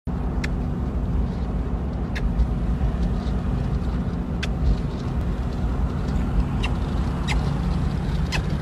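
Steady low rumble of a moving car heard from inside the cabin: engine and road noise, with a few faint sharp clicks at irregular moments.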